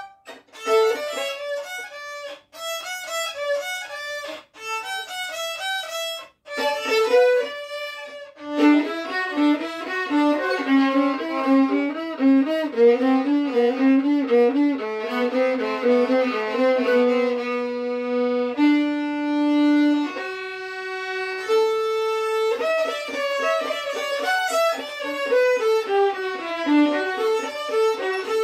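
Two violins playing a jazz scale exercise together: short detached phrases with brief rests at first, then running notes, a few long held notes stepping upward about two-thirds through, and quick notes running down near the end.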